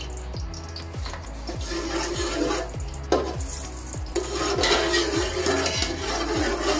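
Slotted metal spoon stirring and scraping melting ghee around a large aluminium pot, louder from about two seconds in, with one sharp knock of the spoon about three seconds in. Background music with a steady repeating pattern runs underneath.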